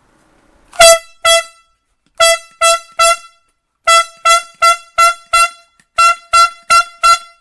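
Air horn sounded in about fourteen short, loud blasts of one steady high pitch, grouped two, three, five and four.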